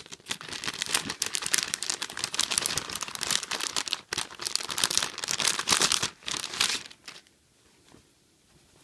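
Clear plastic packaging bag crinkling and rustling in the hands as a doll outfit is pulled out of it, stopping about seven seconds in.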